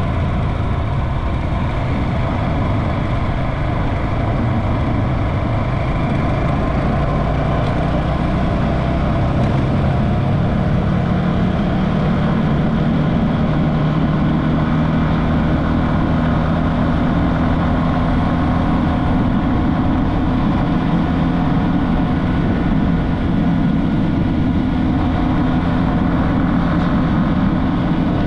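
Motorcycle engine running at a steady speed while riding, with steady road and wind noise.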